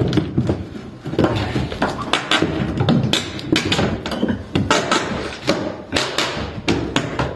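An irregular run of knocks, taps and thuds, several a second, over a steady low background.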